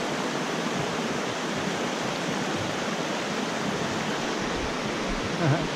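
Mountain creek rushing over boulders in white-water rapids: a steady, even wash of water.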